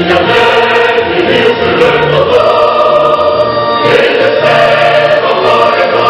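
Choral music, many voices singing sustained chords over a low bass line, the chords changing every second or so, as a channel's opening theme music.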